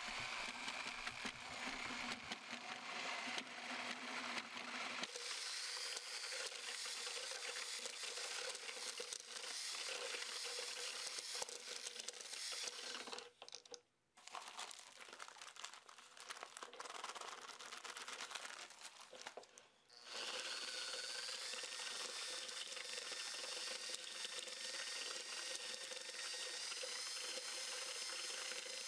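Drill on a low speed turning a paddle mixer through thinset mortar in a plastic bucket: a steady motor whine with gritty churning. It drops away for several seconds about halfway and picks up again about two-thirds of the way in.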